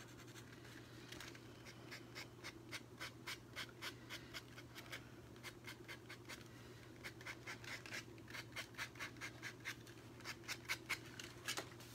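Sandpaper rubbing over a stuffed muslin figure in short, light scratching strokes, about three a second with a brief lull midway. The painted icing, buttons and eyes are being lightly sanded to distress them.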